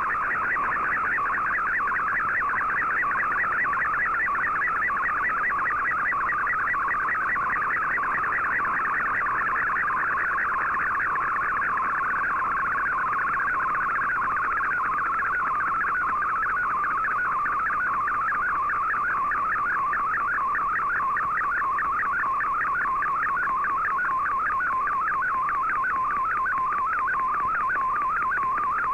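Shortwave digital-mode picture signal, fldigi's MFSK image transmission from Shortwave Radiogram, received on an Icom IC-R8600 in AM. It is a steady, rapid, rhythmic chirping warble confined to a narrow mid-pitch band, and it is the colour picture being sent line by line, with each pixel's brightness carried as the pitch of the tone.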